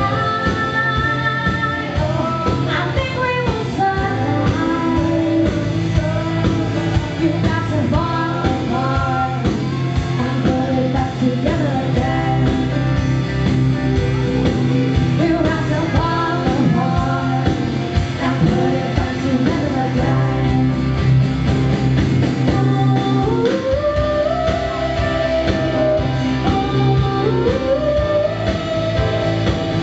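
A woman singing live into a microphone over an amplified pop-rock band with guitar and bass, her voice bending and holding long notes.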